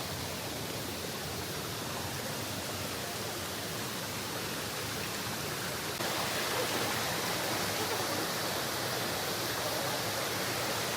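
Waterfall rushing: a steady, even roar of falling water that gets a little louder about six seconds in.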